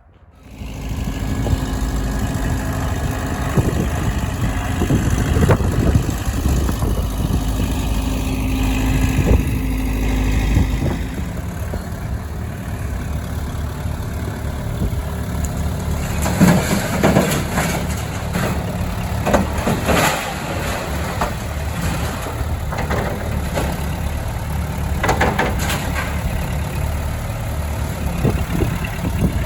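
A machine's engine running steadily, with a held whine until about eleven seconds in. Sharp knocks and clatter come in clusters around the middle and again near the end.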